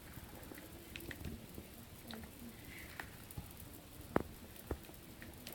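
Cocker spaniel puppy chewing and gnawing on a toy: irregular soft, squishy clicks, with a sharper click or two about four seconds in.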